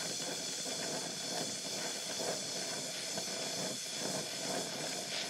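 Oxy-acetylene welding torch flame hissing steadily while it heats the weld pool on a steel tube.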